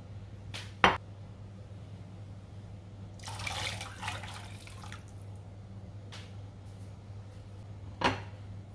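Water poured from a bowl into a pot of stock, splashing for about two seconds in the middle. A sharp knock comes about a second in and another near the end, the first the loudest sound.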